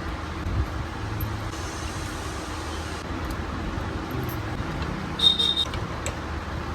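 Steady road-traffic rumble, with a short ringing metallic clink a little past halfway.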